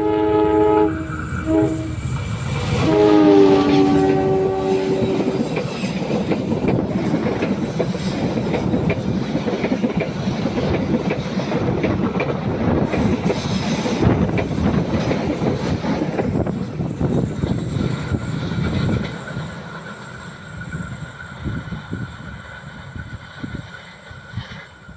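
A passing train sounds its horn twice: a short blast, then a longer one that drops slightly in pitch. The wheels and cars then clatter past for about fifteen seconds, fading away near the end.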